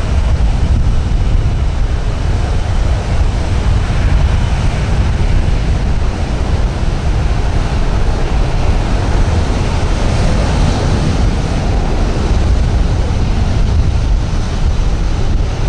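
Douglas DC-8-73CF's four CFM56 turbofan engines running at low power as the freighter taxis, a steady jet rumble mixed with heavy wind buffeting on the microphone.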